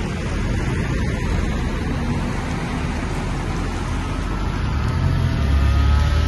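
Water splashing steadily in a tiered stone fountain, mixed with street traffic. A low rumble swells about five seconds in.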